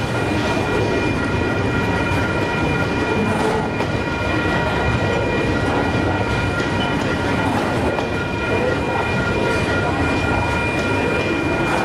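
Loaded rail-train flatcars carrying long strings of welded rail rolling steadily past, a continuous rumble of wheels on track. Over it, the grade crossing warning bell rings as a steady high tone.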